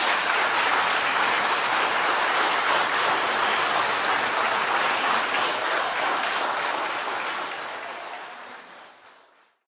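A crowd of guests applauding steadily, fading out over the last few seconds.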